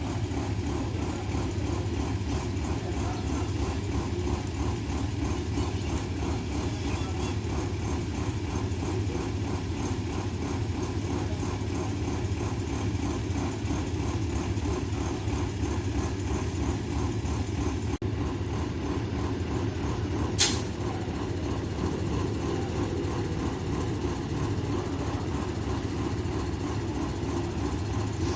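Mercedes-Benz OH-1420 bus diesel engine idling steadily. A brief sharp hiss comes about twenty seconds in.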